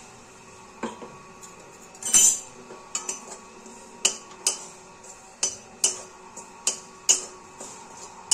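Spatula knocking and scraping against a steel kadai while stirring a dry powder being roasted, about two sharp knocks a second, with one longer, louder scrape about two seconds in.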